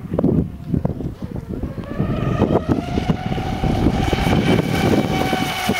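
Electric motor and propeller of a battery-powered RC speedboat (14 cells) whining at full speed. The whine rises in pitch about two seconds in, then holds steady. Gusting wind noise on the microphone runs underneath.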